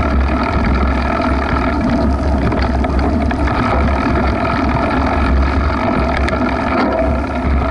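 Steady wind rumble on a bike-mounted action camera's microphone as a mountain bike rides through grass, with a constant higher hum over it.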